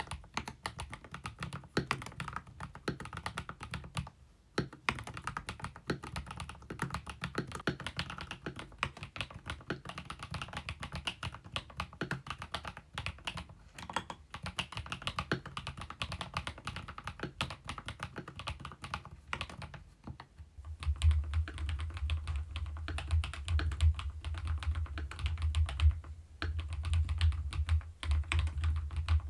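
Fast continuous typing on a Kemove K87 1980 mechanical keyboard, a dense run of key clicks. About two-thirds of the way through it turns louder, with a deep low hum underneath the keystrokes.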